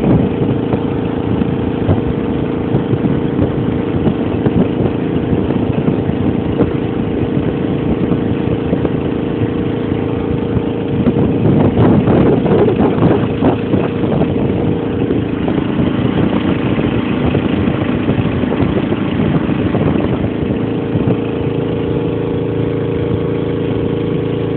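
Small duck boat's motor running steadily at cruising speed, with water rushing along the hull; the sound grows rougher and louder for a few seconds about halfway through.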